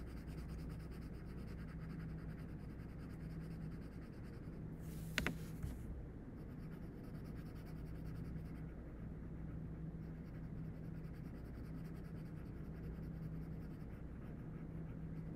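Pencil scratching on paper in steady back-and-forth shading strokes. A single sharp tap about five seconds in.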